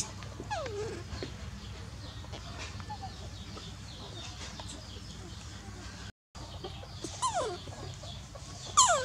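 Baby macaque screaming in short squeals that fall steeply in pitch: one about half a second in, then two close together near the end, the last the loudest.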